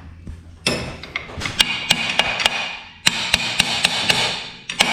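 Hammer striking a screwdriver that is being used as a punch on the Bandolero's rear-end parts: repeated metal-on-metal blows, about three or four a second, each followed by ringing. The blows start just under a second in and pause briefly around the three-second mark.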